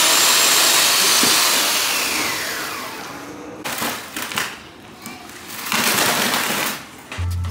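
Corded electric chainsaw cutting the butt of a Christmas tree, its motor whine falling in pitch as it winds down about three seconds in. It runs again in short bursts, and music comes in near the end.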